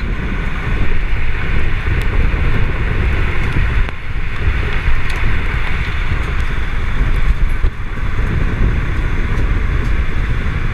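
Tornado winds roaring against a vehicle and buffeting the microphone: a loud, steady rumble with a hiss over it.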